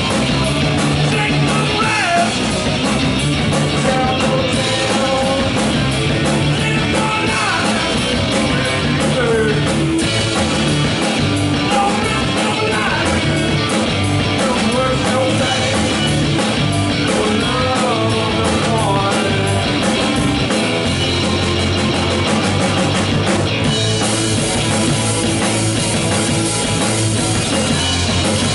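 Rock band playing a loud, steady rock song with drum kit, electric guitar and bass.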